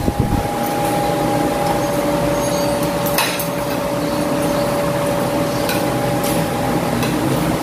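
A steady mechanical whir with a faint steady whine runs throughout, while spoons and forks clink on plates, the sharpest clink about three seconds in.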